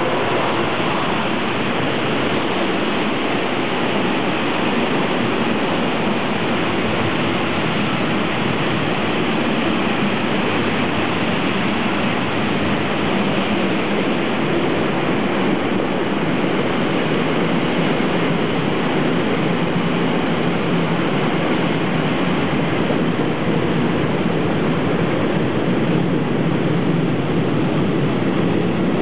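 Freight train passing close, with car-transporter wagons rolling by: a steady rush and rumble of wheels on the rails, even in level throughout.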